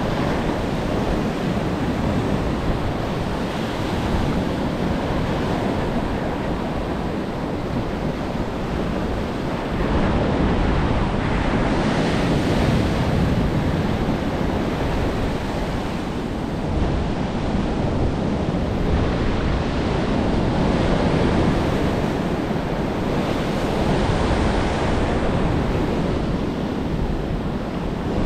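Ocean surf breaking and washing up the sand at the water's edge: a continuous rush that swells and eases as the waves come in, with wind rumbling on the microphone.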